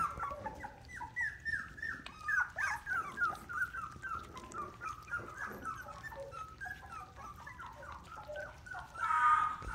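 Australian Shepherd puppy whimpering in a rapid run of short, high, falling whines, crying for its mother. The cries turn louder and more drawn out near the end.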